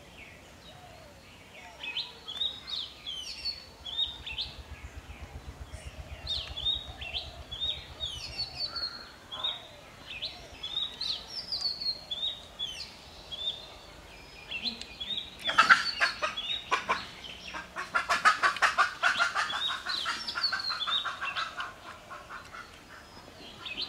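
Small birds chirping: short, high, falling chirps repeating over and over. About two-thirds of the way in, a louder, fast rattling bird call runs for several seconds with one short break.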